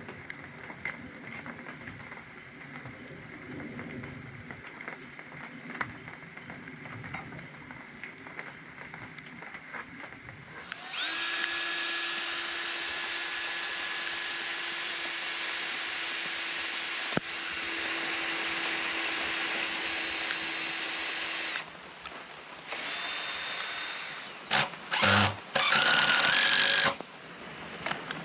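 A handheld power tool motor runs steadily at one pitch for about ten seconds, then goes again in a shorter run and a few quick bursts near the end. Before it there are only faint scattered ticks and knocks.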